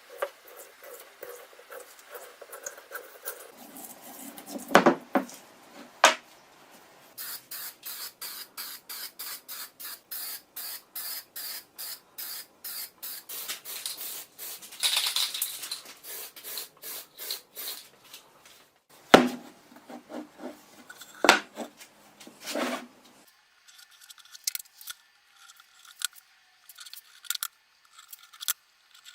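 Workshop hand-tool work: a long run of quick, even scraping or cutting strokes, about three a second, with a few sharp knocks before and after.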